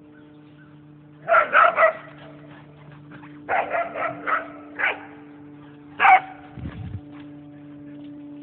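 Whippets barking in play, in quick clusters: three fast barks about a second in, a run of four or five a couple of seconds later, then a single bark near the six-second mark. A steady low hum runs underneath.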